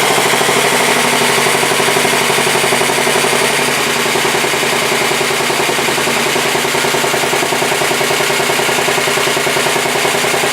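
A 1967 Sears Suburban 10 garden tractor's engine running steadily with a rapid firing beat, its sound easing slightly about four seconds in. It is held at the engine speed it is normally worked at, which is too slow for the generator to keep the battery charged with the coil drawing current.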